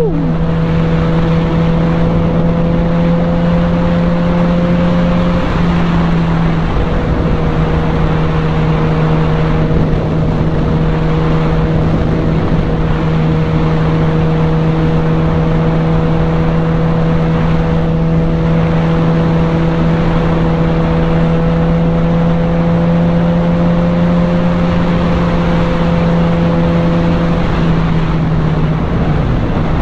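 Sport bike engine running steadily at cruising speed, its note nearly constant and easing briefly about six seconds in and again near the end, over a steady rush of wind and road noise on the onboard microphone.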